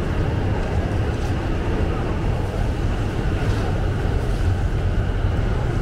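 Steady city street ambience: a constant low rumble under an even hiss, with no distinct events.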